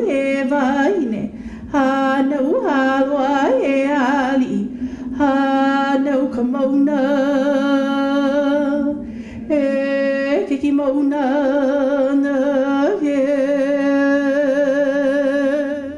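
A woman's solo voice chanting in Hawaiian, in long held notes with a wavering vibrato. In the first few seconds she slides up into each short phrase, and from about five seconds in the notes are held longer.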